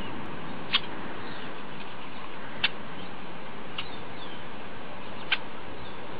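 Short, sharp bird chirps, four of them a second or two apart, with faint gliding whistles between, over a steady outdoor hiss.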